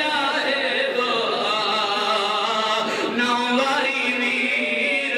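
A man chanting verses into a microphone in a melodic voice, with long held notes that bend up and down.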